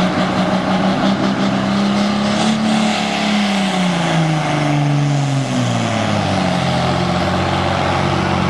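Super Farm class pulling tractor's diesel engine running hard under full load while pulling the sled. Its note sags from about two and a half seconds in to about six seconds in and then holds at a lower steady pitch, as the tractor is having trouble.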